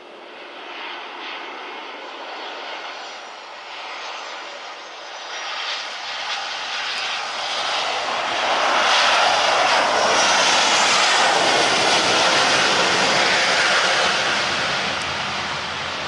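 Airliner's engines passing close by, growing steadily louder to a peak in the second half, with a faint high whine falling in pitch about four seconds in.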